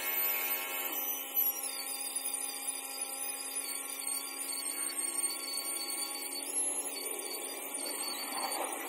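Hand-held angle grinder with a polishing pad running at a steady whine while it polishes the cut edge of a granite sink opening. A rougher grinding noise comes in near the end.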